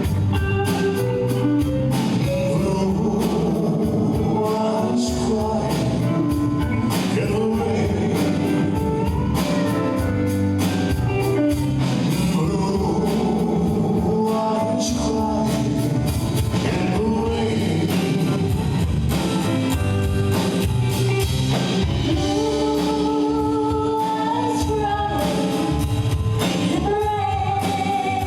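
Live band music with a male singer, drums and guitar, playing steadily.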